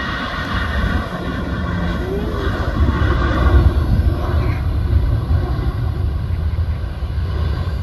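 Jet airliner's engines: a deep, uneven rumble with a high whine that fades after the first couple of seconds. The rumble is loudest about three and a half seconds in.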